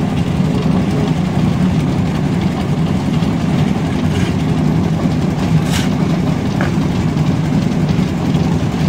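Portable concrete mixer's engine running steadily, with a few brief scrapes of a shovel in wet concrete past the middle.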